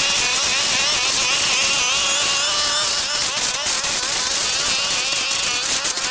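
Brush cutter engine running at high revs, its pitch wavering slightly while cutting grass.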